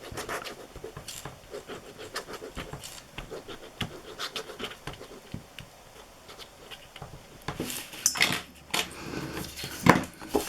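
Light taps, clicks and scratches of cardstock and glue being handled on a craft table, with a louder rustle about eight seconds in and a sharp tap near the end.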